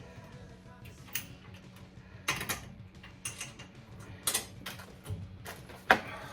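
Scattered sharp metallic clinks and knocks, about five spread across the span, from hand tools and bolts being worked against car front suspension parts.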